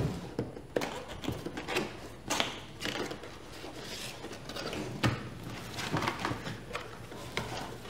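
Small cardboard boxes being opened by hand: lids and flaps sliding, scraping and rustling, with scattered light knocks and clicks, a few of them sharper.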